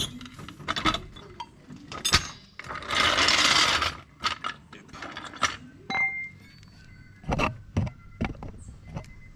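Scattered metallic clinks and clicks of the floor jack and tools being worked to lower the car, with a short loud rushing hiss about three seconds in.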